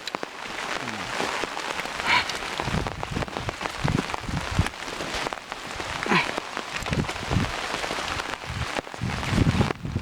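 Steady splashing, hissing water noise from the flooding, with irregular low thumps and two brief sharper sounds, about 2 s and 6 s in.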